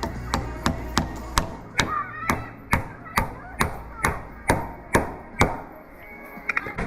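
Hammer driving nails into framing lumber: a steady run of about a dozen sharp strikes, roughly two a second, stopping about five and a half seconds in.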